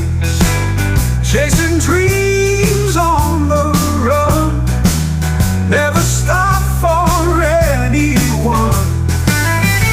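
Background rock music: a steady bass line under a gliding melody line, sung or played on guitar.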